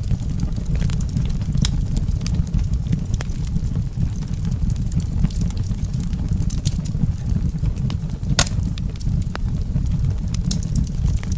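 Fireplace fire crackling: irregular sharp pops and snaps over a steady low rumble, with one louder pop about eight seconds in.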